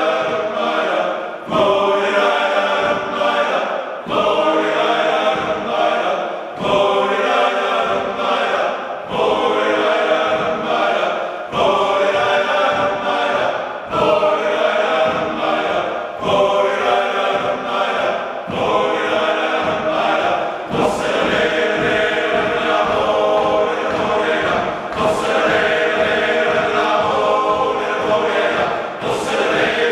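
Male choir singing a Svanetian round dance, a Georgian-style song from Svaneti, a cappella in several-part harmony. The phrases are short and repeat about every two and a half seconds.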